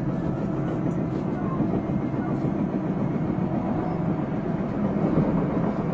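JR Central 373-series electric multiple unit running at speed, a steady rumble of wheels and motors on the track.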